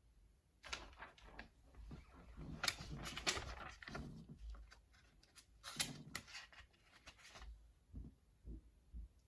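Irregular rustling, crinkling and light knocks of packaging being handled in an unboxing, busiest in the first seven seconds and then dying down to a few faint thumps.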